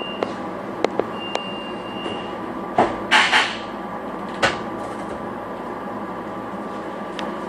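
Silverliner V electric railcar's passenger doors closing: a short high beep, a rattling slide about three seconds in and a knock a second later. A steady hum from the car's electrical equipment runs underneath, with a few sharp clicks.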